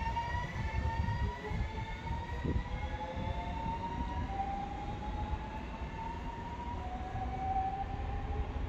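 Class 72 electric multiple unit pulling out and accelerating away: its traction motors give a whine that rises in pitch in several steps, over a low rumble.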